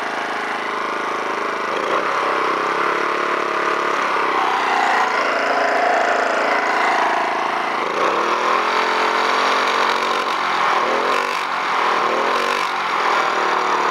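Alton AT04141 portable generator's gasoline engine running under its own power, its speed dipping and rising again several times.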